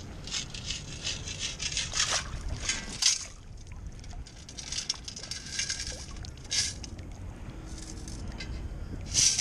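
Water sloshing as a long-handled metal sand scoop is shaken in shallow water. Gravel and sand rattle through its perforated basket in short bursts: several in the first three seconds, more around five to six seconds, and one near the end.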